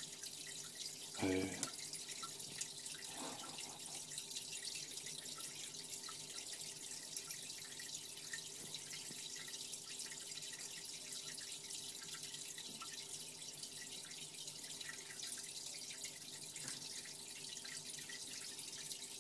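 Aquarium water trickling and dripping steadily, over a faint steady hum.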